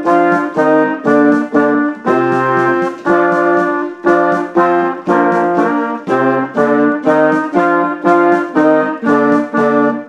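A concert band with brass to the fore playing short, accented chords in a steady rhythm, about two a second, breaking off right at the end.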